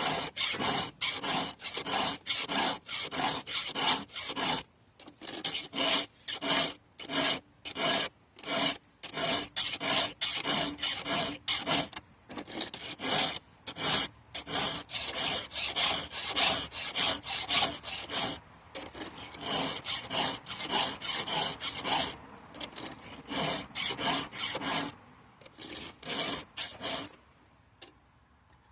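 A file rasping across the cutters of a chainsaw chain in quick strokes, about three a second, in runs with short pauses; the strokes stop near the end. Crickets keep up a steady high chirring in the background.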